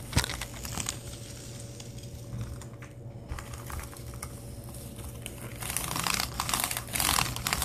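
Small plastic toy figures being handled and moved on a tabletop: light clicks and rattles, much busier in the last two seconds. A faint steady hum runs underneath.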